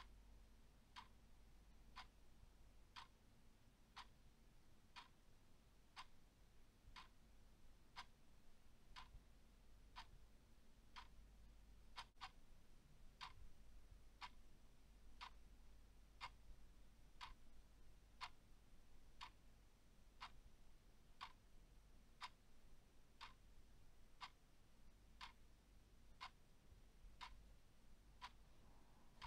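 A clock ticking steadily and faintly, one tick about every second.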